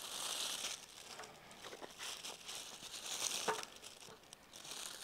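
Plastic bag crinkling and rustling in short, uneven spells as it is handled, being readied for coating fish in flour.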